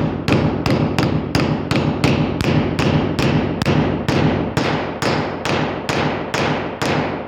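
Hammer blows driving a splined bolt into a drilled hole: a steady run of about three strikes a second, each ringing briefly.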